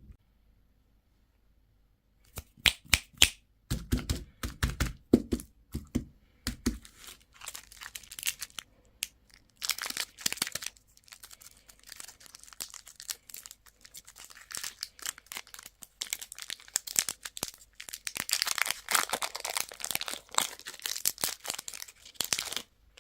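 Plastic candy wrappers and packaging being opened: after a couple of seconds of silence, a run of sharp snaps and clicks with dull knocks, then long stretches of crinkling and tearing that stop suddenly near the end.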